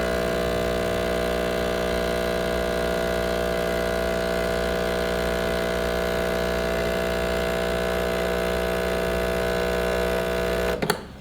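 Breville espresso machine's pump humming steadily while pulling a double espresso shot at full extraction. It stops with a click near the end as the shot finishes.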